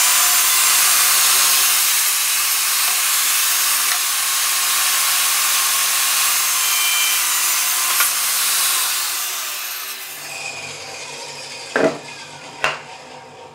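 Bosch GTS 254 table saw's 1,800 W motor running as its 254 mm blade cuts through a wooden board at a 45-degree mitre, a loud steady sawing noise over a motor hum. About nine seconds in the saw is switched off and winds down, falling in pitch. Near the end there are two sharp knocks.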